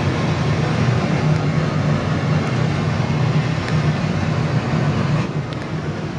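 A loud, dense rumbling drone of music, with no clear melody or beat, easing off about five seconds in.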